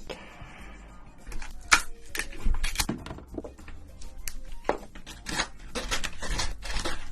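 Cooked red king crab being handled, its shell making irregular sharp clicks and crackles that come thicker from about two seconds in.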